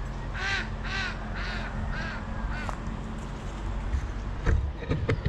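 A bird calling five times in quick succession, about two calls a second, followed by a few low thumps near the end.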